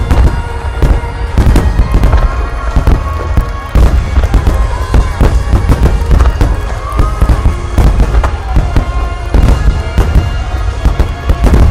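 Dense barrage of aerial firework shells bursting in quick succession, a continuous run of deep booms and sharp cracks, with music playing underneath.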